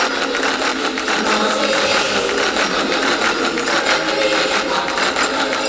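Background music with fast, busy percussion over held tones.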